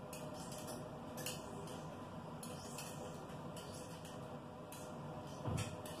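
Indesit front-loading washing machine turning its drum during a wash cycle: a steady hum with irregular light clinks, and a heavier thump about five and a half seconds in.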